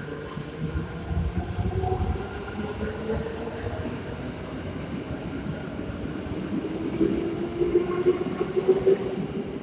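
Rusich metro train approaching the platform: a low rumble of wheels on rails with a steady electric whine, growing louder about seven seconds in.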